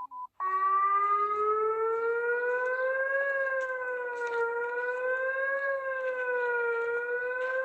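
Emergency alert (EAS) alarm siren: a wailing tone starts about half a second in and rises and falls slowly in pitch, about once every two and a half seconds, just after a brief beep.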